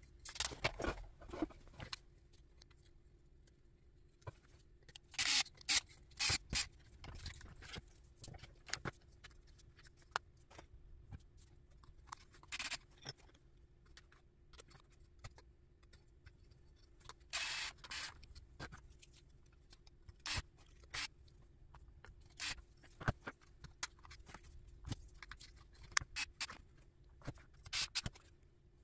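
Irregular short scrapes, rubs and clicks of a carbon fiber chassis plate and small RC car parts being handled and screwed together, over a faint steady hum.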